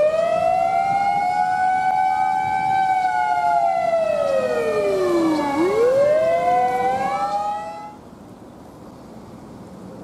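A siren wailing in slow, long rises and falls, each sweep taking several seconds. It cuts off abruptly about eight seconds in, leaving faint outdoor background.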